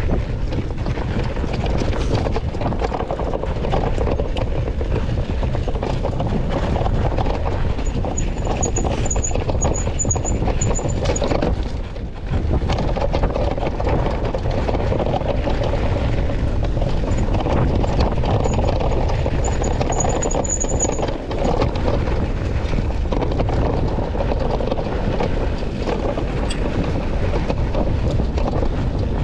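Rushing wind on the microphone and tyre noise on a rocky dirt trail while riding an ONYX RCR electric bike, with a faint high squeal twice.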